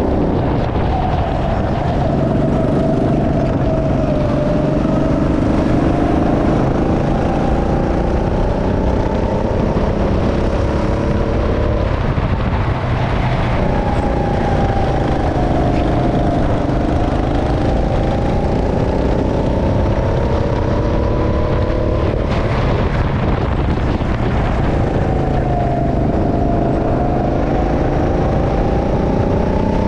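Go-kart engine running hard on track, heard from the driver's seat. Its pitch climbs and drops again several times as the driver accelerates and lifts off for the corners.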